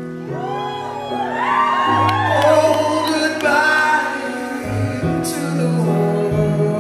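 A male lead vocalist sings live over a band's sustained chords and bass notes, his voice sliding and curling between pitches in a run during the first few seconds.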